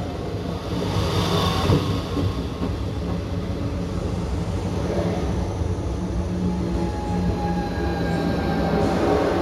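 CP 2300 series electric multiple unit running on its Siemens/EFACEC 1TB2222-OTAO3 three-phase asynchronous traction motors: a steady rumble with faint whine tones, and a brief hiss about a second in.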